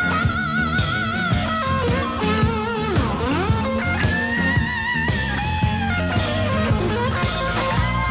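A blues-rock band playing an instrumental break: a lead electric guitar solo with string bends, slides and wide vibrato over bass and drums.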